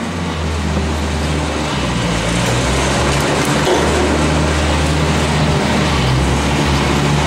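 Tractor diesel engine running steadily at low revs, with a constant low hum.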